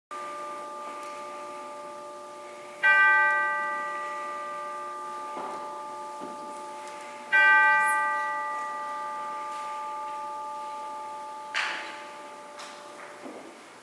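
A bell struck twice, about four and a half seconds apart, on the same note, each stroke ringing on with a long slow fade. A short sharp knock sounds near the end.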